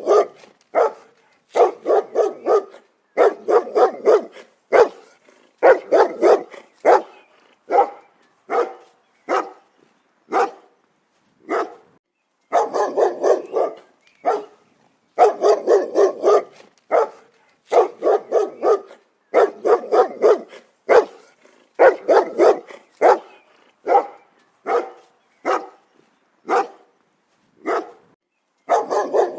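A dog barking loudly in quick runs of several barks, with short pauses between the runs.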